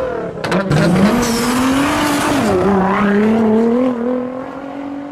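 Car engine revving. Its pitch climbs, drops about two and a half seconds in, then climbs again as it fades out. A few sharp pops come near the start.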